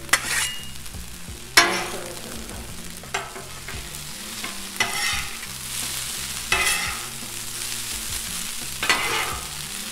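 Fried rice sizzling on a Blackstone flat-top griddle while two metal spatulas scrape and clack against the griddle top, with a sharp scrape every second or two over a steady hiss.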